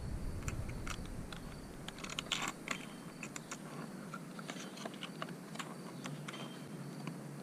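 Scattered clicks, rattles and crinkles of small parts and their packaging being handled while searching through chainsaw parts, with a denser run of clatter about two and a half seconds in.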